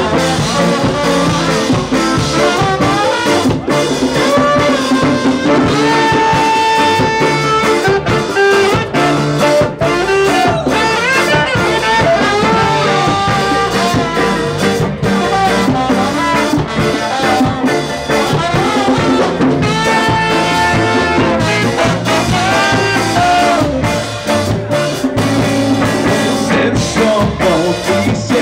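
A live band playing loudly, with brass horns holding and sliding between notes over electric guitar, bass and drums.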